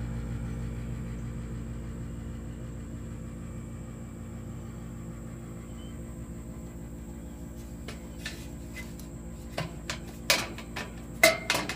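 A steady low hum, then, in the last few seconds, a string of sharp metallic clinks and clanks, two of them louder and briefly ringing.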